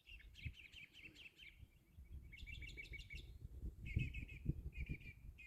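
Small songbirds chirping in quick trilled series of short notes, faint, with soft low thumps underneath.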